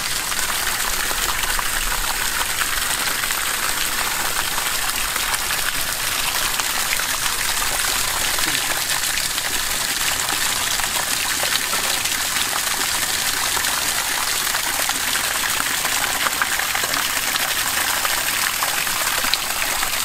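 Pumped water gushing in a steady rush from a PVC outlet pipe and splashing down onto leaves and wet ground.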